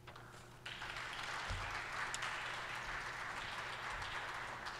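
Audience applauding, starting suddenly under a second in and continuing steadily.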